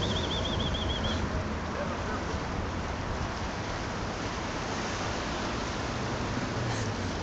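Steady outdoor hiss and rumble of wind on the microphone mixed with distant city traffic, with a high warbling trill in the first second.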